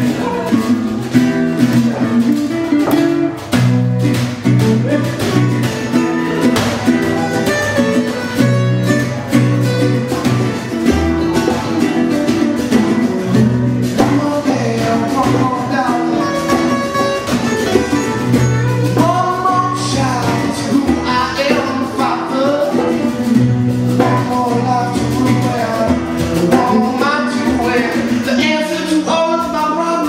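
Live acoustic song: a steel-string acoustic guitar strummed in steady chords over hand-drum strikes, with a voice singing from about halfway through.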